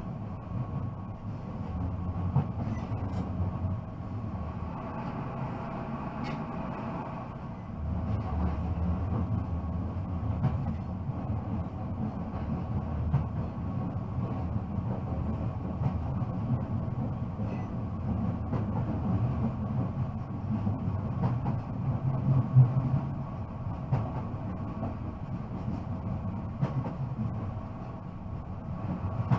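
Newag Impuls electric multiple unit running along the line, heard from the driver's cab: a steady low rumble of wheels on track with a faint steady whine above it and a few light clicks.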